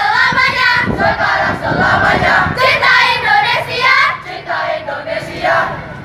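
A group of women chanting a yel-yel, an Indonesian group cheer, in unison, sung loudly in short phrases.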